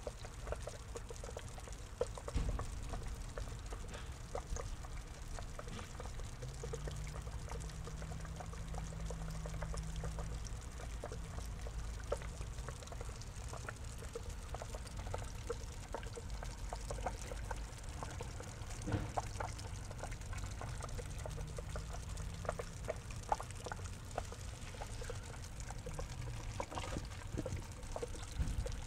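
Water pouring and trickling steadily into a small pond, with many small splashes and drips.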